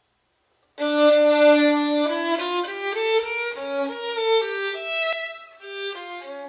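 Music: a violin playing a melody of quick successive notes, starting abruptly less than a second in.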